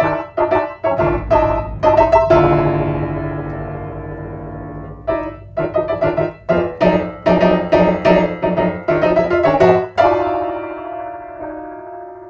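Grand piano being played: a run of quick notes and chords, then a held chord ringing and fading, then a second, longer flurry of notes ending about ten seconds in on a chord that is left to ring and die away.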